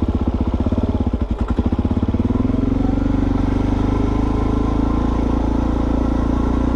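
Motorcycle engine running with a clear, even pulsing beat, then about two and a half seconds in the revs come up and it runs smoother and stronger, rising a little in pitch before holding steady.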